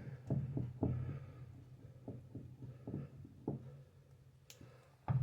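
Spoon stirring pancake batter in a mixing bowl that has just been thinned with hot water, knocking against the bowl at an uneven pace, with a low steady hum underneath.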